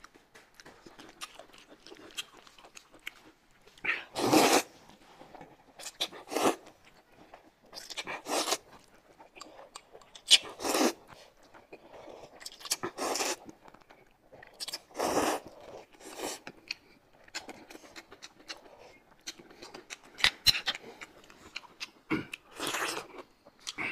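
Noodles being slurped and eaten: about nine short, loud slurps a couple of seconds apart, with quieter chewing between.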